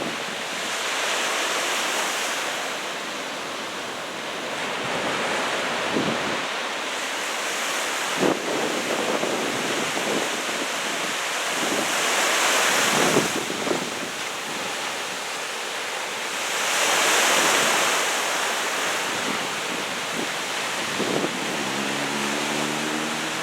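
Heavy surf from a typhoon swell breaking along the beach, a steady wash that rises and falls as sets come in, loudest in three surges. Wind gusts buffet the microphone with occasional sharp knocks.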